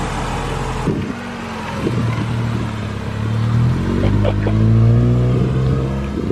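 Honda Integra DC2's four-cylinder engine pulling away at low revs. The engine note climbs for a couple of seconds and then eases off and falls near the end.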